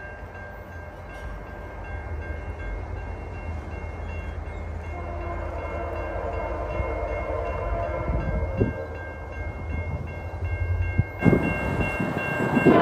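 An approaching VIA Rail passenger train's Nathan K1L13 horn, sounding in the distance and growing louder, over the steady ringing of the grade crossing's bell and a low rumble. The sound jumps louder about eleven seconds in as the train nears.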